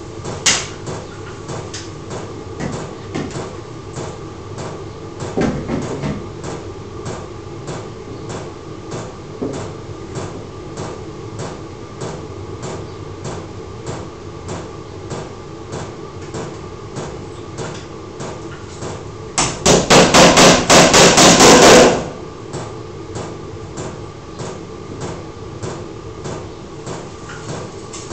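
Hammer tapping cable clips into a timber ceiling beam, with a quick run of about ten loud blows about three-quarters of the way through. Under it run regular light ticks, about two a second, and a faint steady hum.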